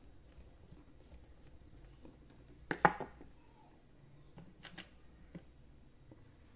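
Small hand-handling clatter of a screwdriver and speaker parts on the PVC-pipe speaker enclosure: a quick cluster of sharp knocks about three seconds in, then a few fainter clicks.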